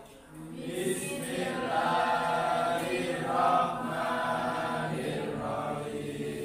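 A classroom of students reciting a prayer aloud together in unison, many voices chanting on steady pitches.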